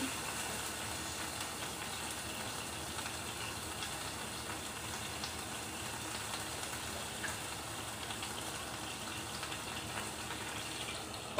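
Water sizzling steadily in a hot frying pan around bread pizzas, with a few faint crackles. The water is added to raise steam that melts the cheese.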